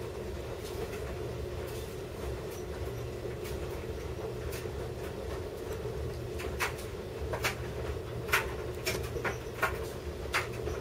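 Small sharp clicks and ticks of a plastic pick prying an iPod Touch screen loose from its adhesive-held backing, more frequent in the second half, over a steady low hum.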